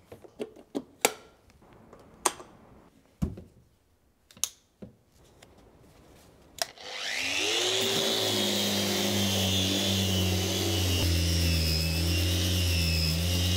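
A few light clicks and knocks of handling, then about seven seconds in a random orbital sander and its Bosch dust extractor start together, spinning up with a brief rising whine and then running steadily with a hum and a hiss while sanding fairing compound.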